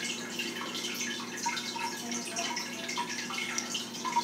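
Marker drawing strokes: irregular short scratching with brief squeaks, over a faint steady hum.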